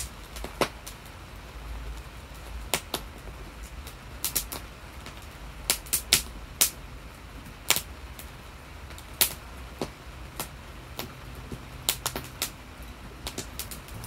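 Irregular sharp clicks and knocks as raw sweet potatoes are handled and set down into a cast-iron Dutch oven, over a low steady hum.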